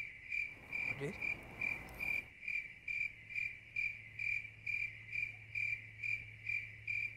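Crickets chirping in an even rhythm, about two and a half chirps a second, starting abruptly as the talk stops: the stock crickets sound effect for an awkward silence.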